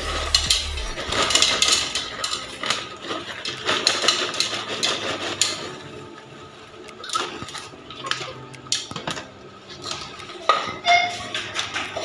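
Microwave popcorn being poured from its paper bag into a plastic bowl: the bag rustles and the popped kernels clatter down into the bowl. The sound is dense for the first five seconds or so, then thins to scattered light clicks and rustles.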